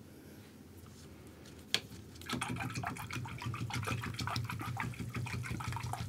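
A paintbrush being swished and scrubbed in a water cup to rinse out acrylic paint: a single click just under two seconds in, then a rapid run of sloshing, scrubbing strokes.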